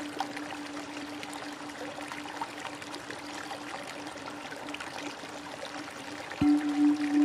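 Flowing stream water with a steady low hum beneath it. About six seconds in, music starts suddenly with a louder, pulsing tone.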